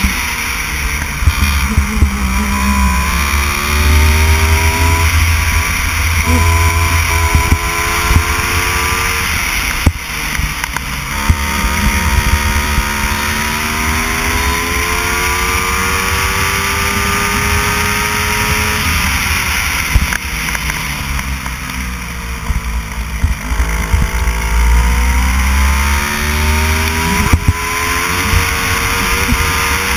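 Racing kart engine running hard on track, its note climbing on the straights and dropping as it slows for the corners, several times over.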